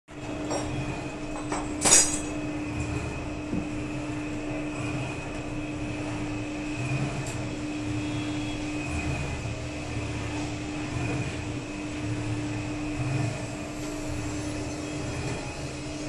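Stainless steel dal washing machine running, its motor-driven paddle shaft turning in the tub with a steady hum over an uneven low rumble. A sharp metallic knock about two seconds in is the loudest sound.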